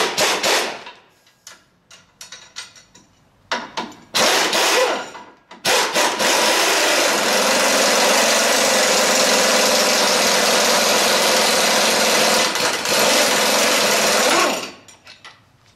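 Snap-on impact wrench with a 21 mm socket working the Jeep JK's rear lower control arm bolt loose. It gives a few short bursts, then runs steadily for about nine seconds as the bolt is spun out, and stops near the end.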